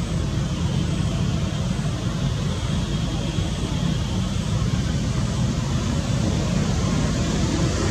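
Steady low rumble with a fainter hiss above it, even throughout, with no distinct calls or knocks.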